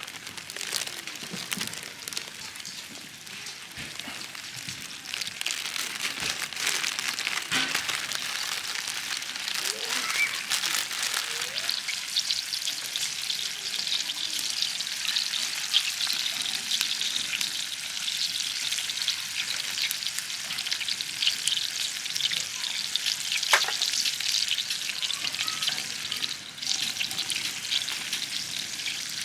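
Food sizzling and crackling in a hot pan, growing louder over the first several seconds and then holding steady, with occasional sharp pops.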